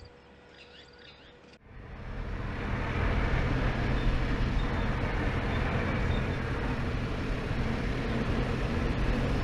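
A 4x4 vehicle driving on a sandy bush track: a steady low engine hum with dense tyre and road noise, which comes in after about a second and a half of quiet with a few faint bird chirps and then builds over the next second.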